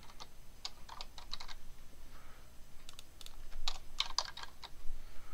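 Computer keyboard being typed on in a few short runs of keystrokes, with pauses between.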